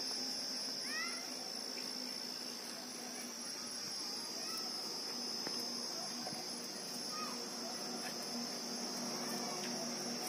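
Steady high-pitched insect chorus, with a few faint short chirps over it.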